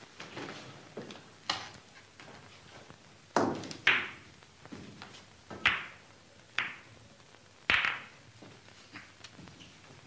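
Pool balls clacking during a game of eight-ball: about six sharp, separate clicks of cue tip and balls striking one another, spaced a second or two apart, with the loudest a close pair about three and a half seconds in.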